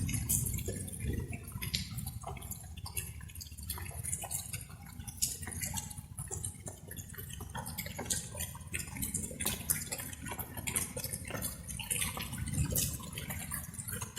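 Light rain with many irregular drops dripping and pattering close by, over a steady low rumble.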